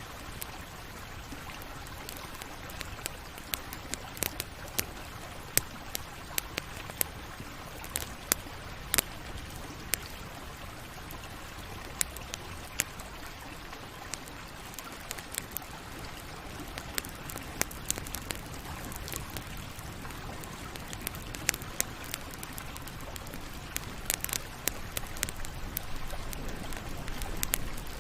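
Campfire burning: a steady low hiss and rumble of flames with sharp, irregular crackles and pops from the wood, coming a little thicker near the end.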